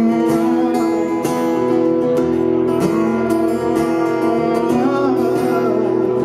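Acoustic guitar being strummed, chords ringing on with steady strokes.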